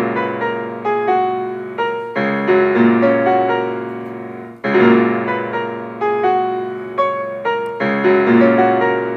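Casio digital keyboard playing in a piano voice: a slow melody of single notes over held chords, with a new chord struck every two or three seconds. It is picked up through a headphone's in-line mic set on the keyboard's speaker.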